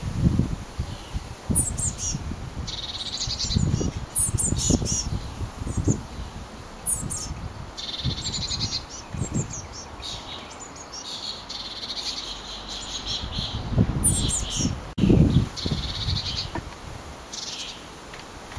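Blue tits calling: repeated high chirps and short rapid trills. Gusts of wind buffet the microphone a few times.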